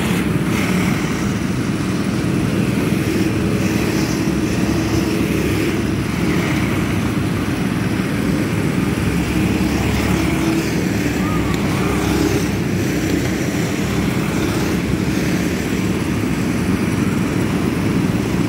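Several go-kart engines running as the karts race round the track, a steady engine drone.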